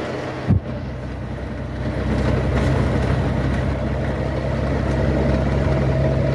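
Vehicle engine running steadily, heard from inside the cab while driving, getting a little louder about two seconds in. A short low thump sounds about half a second in.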